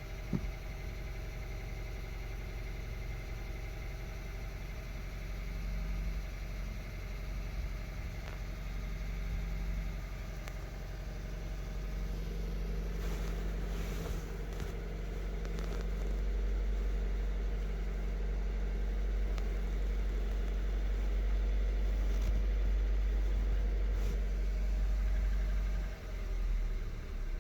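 VW Golf Mk7 1.4 TSI four-cylinder turbo petrol engine idling steadily. It is the engine that logs random and multiple-cylinder misfire codes (P0300, P0301, P0302).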